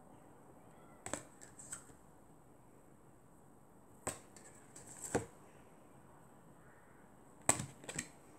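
Cardboard flashcards being handled and swapped: soft taps and flicks in small clusters about a second in, around four to five seconds in, and again near the end.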